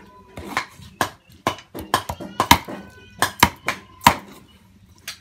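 Steel meat cleaver chopping raw meat on a round wooden chopping block: a run of sharp chops, two or three a second, with a short pause near the end before one more chop.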